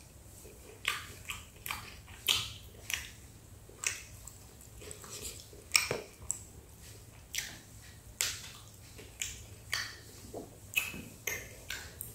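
Close-miked chewing of a crisp Pizza Hut Melts: irregular sharp crunches and wet mouth clicks, one every half second to second.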